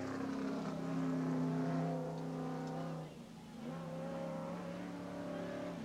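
Off-road race trucks' engines running at speed, held at fairly steady revs; the engine sound drops away briefly about three seconds in before coming back.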